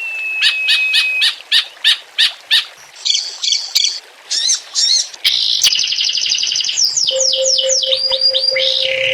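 Songbird song in a varied mixed sequence: a held whistle, then a run of sharp chips about three a second, then fast trills and quick falling sweeps. A steady low tone joins about seven seconds in.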